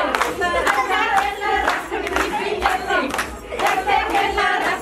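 A group of people singing together over steady rhythmic hand-clapping, about two claps a second.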